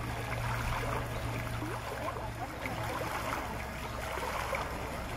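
Small fountain jet splashing steadily into a round stone basin of water.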